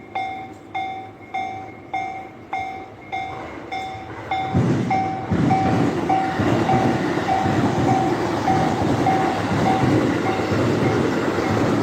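Japanese level-crossing warning bell ringing in even strikes, a little under two a second. About four seconds in, a train passes through the crossing with loud running noise while the bell keeps ringing.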